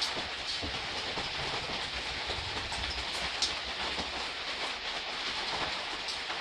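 Steady, soft rain falling, with a few sharper drop ticks standing out here and there.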